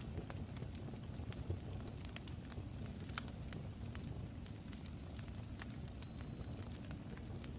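Fire crackling: irregular sharp pops scattered over a steady low rumble, with a faint thin high whistle holding through most of it.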